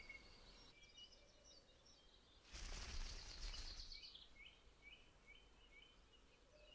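Faint birdsong of small birds chirping in short repeated notes, with a brief rush of noise about two and a half seconds in that lasts around a second and a half.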